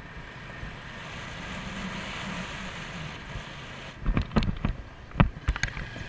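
Motorcycle riding with steady wind noise on the mounted camera's microphone. From about four seconds in there is a string of loud knocks as the bike jolts over a rutted dirt track.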